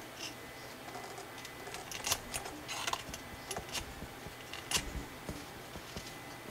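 Square colored origami paper crinkling and crackling as fingers pinch and shape its folds: irregular small crackles, the sharpest about two seconds in and again near five seconds.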